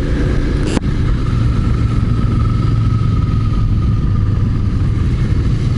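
Motorcycle engine running at a steady pace while riding, under a dense rumble of wind and road noise, with a faint whine sinking slowly in pitch. A short knock about a second in.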